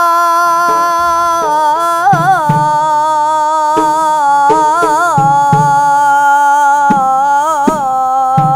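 A boy singing an Arabic devotional ibtihal, drawing out one word in a long held melisma with wavering ornaments, over low hand-drum beats.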